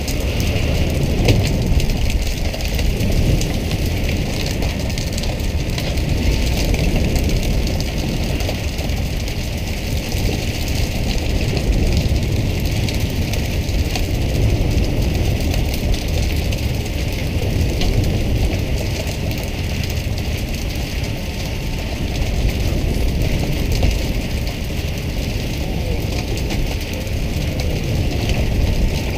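Steady rumble of a fishing boat's engine mixed with the rushing hiss of water spray on the sea surface.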